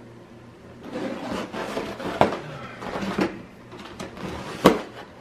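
Gift wrapping paper being torn and rustled off a cardboard box, with two sharp, louder rips, the loudest near the end.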